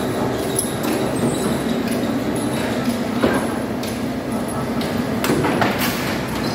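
Metalworking machinery running with a steady, dense noise, with sharp metallic knocks about three seconds in and a cluster of them between five and six seconds in.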